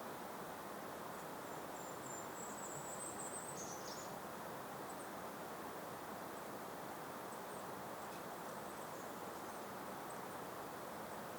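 Steady, gentle breeze. A bird gives one thin, very high drawn-out call from about a second and a half in, dropping at its end near four seconds, and a few faint short high chirps come later.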